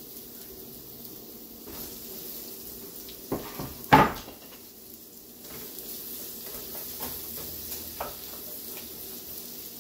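Chopped orange and red bell peppers sizzling in butter in a frying pan, with a sharp clatter about four seconds in. A wooden spoon stirs and taps in the pan near the end.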